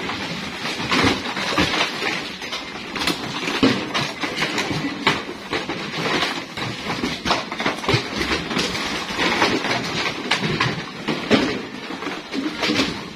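Plastic crates clattering and knocking together in quick, irregular clacks as they are pulled out of heaps of scrap and stacked.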